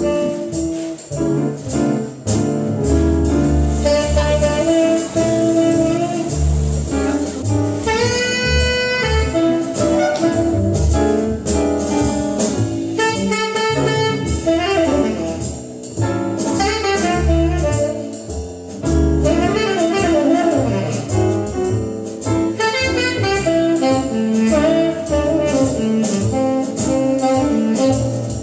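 Recorded music played back through a loudspeaker: an instrumental passage of a slow bolero, a melody instrument over bass and accompaniment, with no singing.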